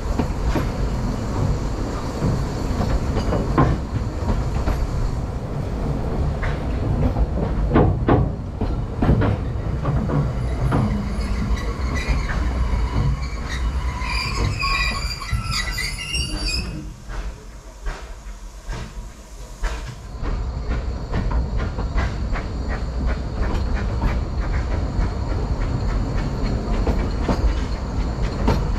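Narrow-gauge railway carriage on the move, heard from its open-sided carriage: steady rumble and clatter of the wheels over the rail joints, with a wavering high wheel squeal about halfway through. The sound briefly drops quieter, then the regular clatter picks up again.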